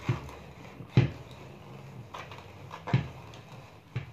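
Four dull knocks about a second apart, from kitchen work on a countertop or board, with quiet room noise between them.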